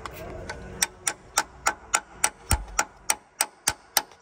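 Ratchet wrench clicking in an even run of about three to four clicks a second, turning the crankshaft through a 22 mm socket on the crank bolt. A dull knock comes about two and a half seconds in.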